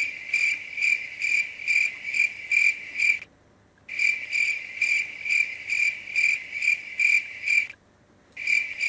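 Cricket chirping, a steady train of short, high chirps about twice a second, which stops dead twice for about half a second and starts again.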